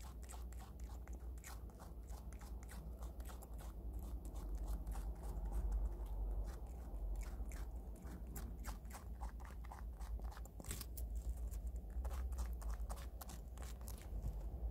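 Prairie dog biting and chewing raw daikon radish: a rapid, irregular series of crisp crunches, heard close up.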